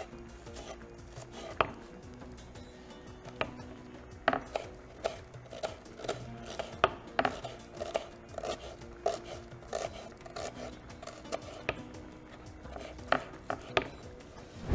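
Small knife dicing onion on a wooden cutting board: sharp, irregular taps of the blade striking the board, a couple a second.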